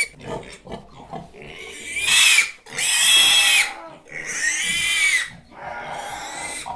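Pig squealing: a run of short grunts, then a string of loud, shrill squeals, each rising and falling in pitch, with short breaks between them.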